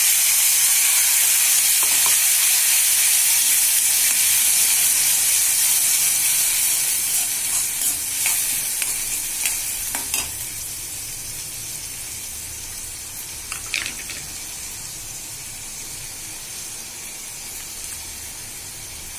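Wet ground masala paste of onion, tomato, ginger, garlic and spices hitting hot oil in a kadai: a loud sizzle that eases off gradually after about six seconds as the paste fries. A few clicks and scrapes of a steel spoon stirring it.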